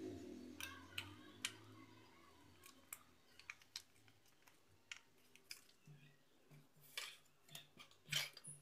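Faint handling of a paper disc: soft paper rustles and scattered light clicks as the cut edges are bent over each other, with a couple of sharper taps near the end as a plastic stencil is set down on the table.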